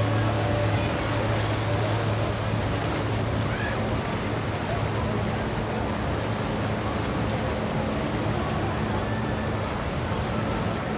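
Low, steady hum of a motor yacht's engines running at slow idle speed, easing off after a couple of seconds. Water wash, wind noise and faint voices run underneath.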